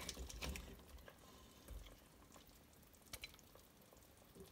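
Wooden spoon knocking and scraping against a steel pressure cooker as pieces of boiled beef are lifted out, with a few sharp clicks near the start and two more about three seconds in.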